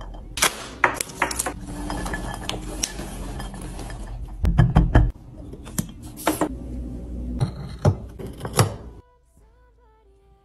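Dishes and utensils being handled: a run of sharp clinks and clacks as items are set down and moved, with a heavier knock about four and a half seconds in. The clatter stops about nine seconds in.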